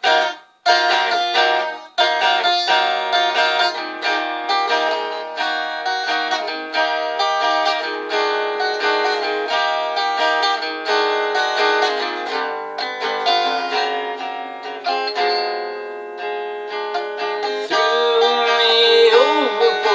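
Instrumental guitar passage of a song: a guitar strummed and picked in a steady rhythm, with a few abrupt stops in the first two seconds before it plays on continuously.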